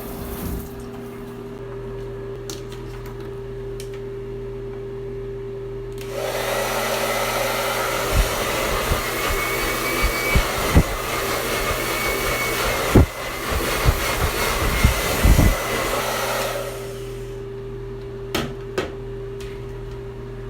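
A small electric appliance motor with rushing air switches on about six seconds in and runs for about ten seconds, with a few low knocks, over a steady background hum.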